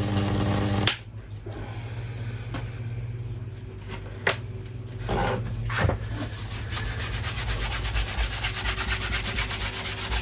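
High-voltage microwave-oven transformer humming, cut off with a sharp click about a second in. A few separate crackles follow, then from about six seconds a fast, even, rasping crackle as current arcs through damp wood in a Lichtenberg fractal burn.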